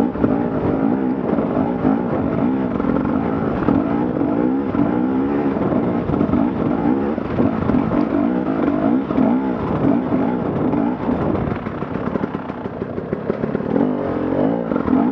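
Dirt bike engine running hard, its revs rising and falling over and over as the throttle is worked.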